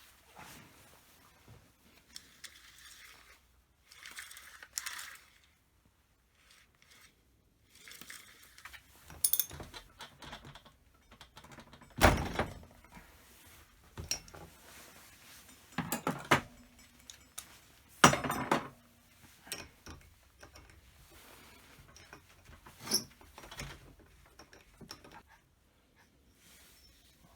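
Scattered knocks and metal clinks of hand tools and small parts being handled during bench work on a STIHL 017 chainsaw, with short stretches of rubbing or scraping in the first third. A few sharper knocks stand out.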